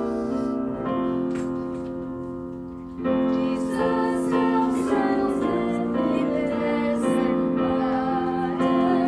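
Piano or keyboard accompaniment of a children's Sabbath school song: a held chord fades for about three seconds, then the music comes in louder with a woman singing over the keyboard.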